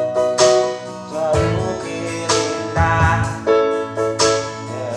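Indonesian pop ballad with a sung line held over piano or electric keyboard chords struck at a slow steady pace.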